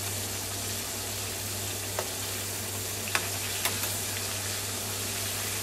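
Chicken strips deep-frying in hot oil, a steady sizzle, almost done cooking. A few light clicks of a metal fork against the pan as the strips are turned.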